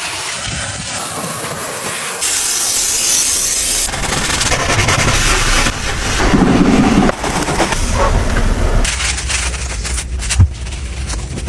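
Hissing spray of car-washing equipment, changing abruptly in pitch and loudness several times, with one sharp knock near the end.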